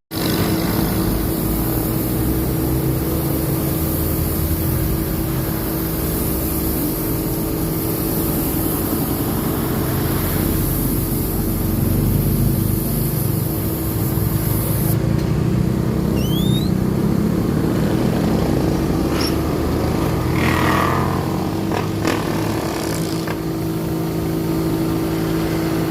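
A machine running with a steady hum, under a strong hiss of air that stops about fifteen seconds in; a few faint chirps and clicks follow.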